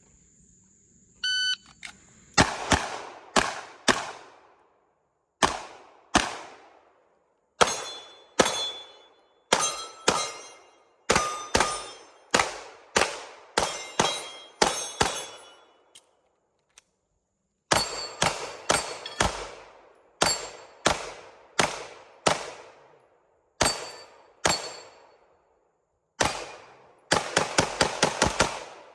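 A shot-timer beep about a second in, then a pistol course of fire: handgun shots in double taps and short strings, some followed by the ring of hit steel targets. There is a pause of about two seconds past the middle, and a fast burst of shots near the end.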